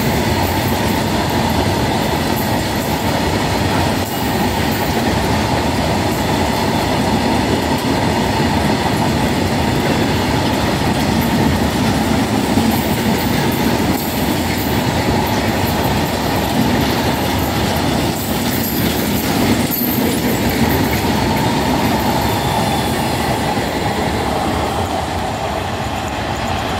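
A goods train of covered box wagons running past at speed: a steady, loud noise of steel wheels on the rails.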